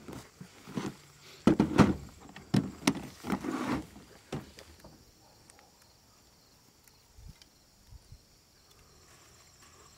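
A quick run of clicks, knocks and rustles as hunting gear is handled and a hard-shell bow case is opened, loudest in the first four seconds. Then it goes quiet, with faint insects chirring near the end.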